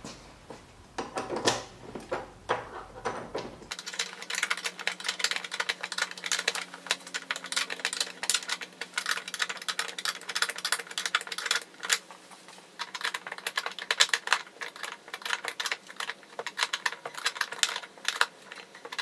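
Small wrench tightening nuts on bolts, making a long run of rapid, uneven metallic clicks, with a few scattered clicks in the first few seconds.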